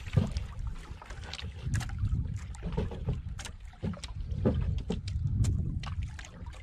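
Water lapping and slapping against a small wooden outrigger boat, with wind rumbling on the microphone and scattered short clicks and splashes as a hand line is hauled in over the side.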